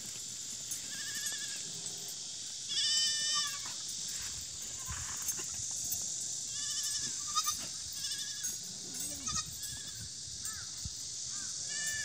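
Korean black goats bleating again and again, short wavering calls one after another, the loudest about three seconds in.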